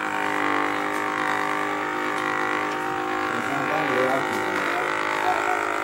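Handheld electric massager running with a steady motor hum while pressed against a small child's back.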